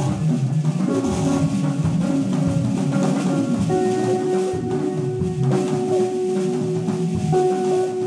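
Live experimental post-jazz band improvising, with drums under dense pitched playing. A single sustained note comes in about four seconds in and is held.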